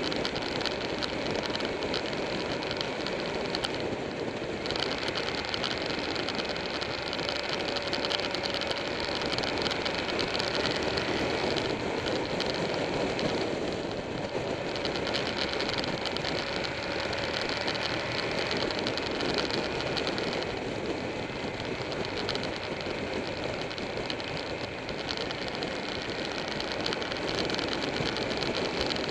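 Buell 1125R motorcycle's V-twin engine running steadily under way, mixed with wind and road noise.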